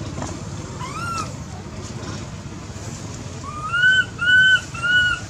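Baby macaque crying in short, high-pitched squealing calls: one rising call about a second in, then three in quick succession near the end.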